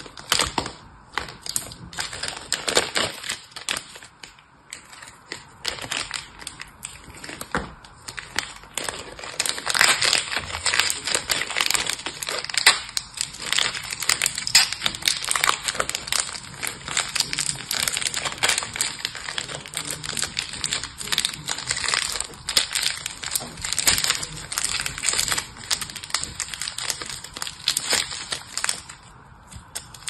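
Thin clear plastic wrapper crinkled, squeezed and twisted between the fingers: a dense, irregular run of crackles and rustles that grows busier and louder about ten seconds in.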